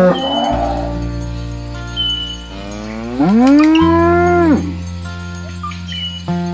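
A cow moos: a short call at the very start, then one long moo about three seconds in that rises in pitch, holds and falls away. Background music with steady held notes runs underneath.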